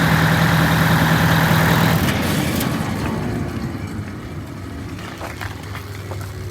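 Detroit Diesel 8V92TA two-stroke V8 diesel idling, then shut off about two seconds in, its sound dying away over the next few seconds.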